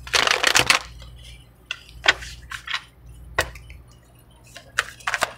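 A deck of tarot cards being shuffled by hand: a rustling burst of cards at the start, then scattered light flicks and taps of cards.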